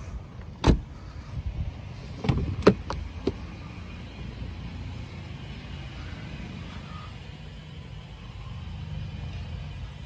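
Car door latch and handle clicks: one sharp click under a second in, then a quick cluster of clicks and knocks about two seconds later, over a low steady rumble.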